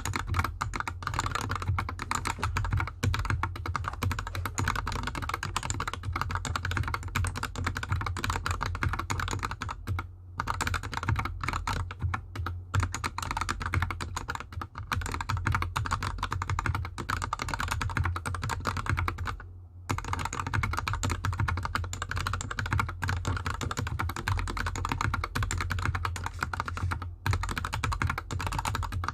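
Continuous fast typing on a GK64X 60% mechanical keyboard with lubed Gateron Yellow linear switches and DSA keycaps, the keyboard sitting straight on the desk with no mat. The typing stops briefly twice, about ten seconds in and again near twenty seconds.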